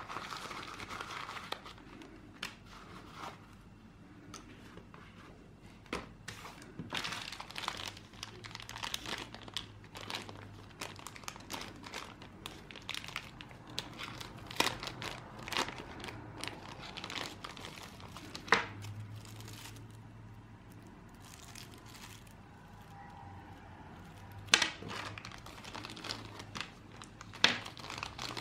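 Thin clear plastic bags crinkling and rustling in the hands as they are pulled open and handled, with a few sharper crackles.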